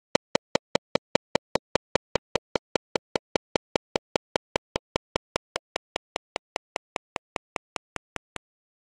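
A rapid, evenly spaced series of sharp clicks, about five a second, slowly fading and stopping shortly before the end.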